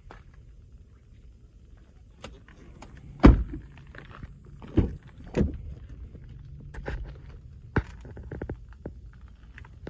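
Ford F-150 crew cab door shut with one heavy thunk about three seconds in. A few lighter thumps and clicks of door and latch handling follow as the next door is opened.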